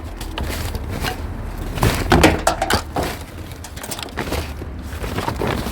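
Rummaging by hand through scrap in a bin: rustling and scraping with scattered knocks and clicks.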